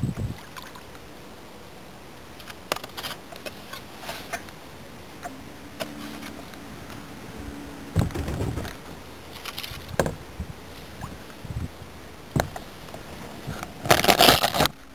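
Scattered knocks and scrapes of a kayak and paddle working along a fallen log and through brush, with a loud, rustling scuff lasting about a second near the end.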